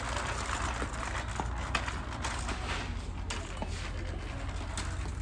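Store background noise: faint indistinct voices over a low steady rumble, with scattered light clicks and knocks.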